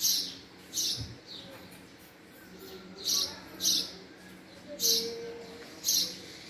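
Male house sparrow chirping: about seven short, high cheeps spaced irregularly, roughly one a second.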